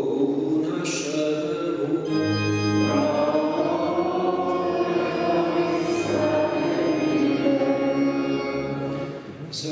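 Church organ playing sustained chords, with voices singing a liturgical chant along with it.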